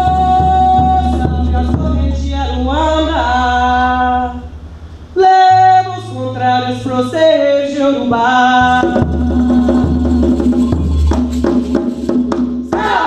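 Capoeira roda music: a solo voice sings long held, sliding notes over a steady low drone and light percussion strikes. A short, loud low note sounds about five seconds in.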